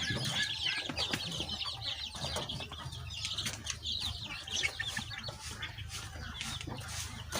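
Young desi chicks peeping continuously in many short, high calls, with a few light ticks among them and a steady low hum underneath.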